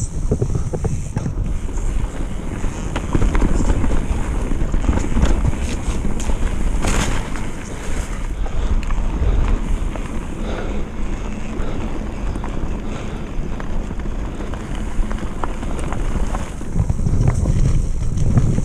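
Downhill mountain bike run heard from a camera on the rider: wind buffeting the microphone over a steady low rumble of tyres on the trail, with scattered knocks and rattles from the bike, and a sharper knock about seven seconds in.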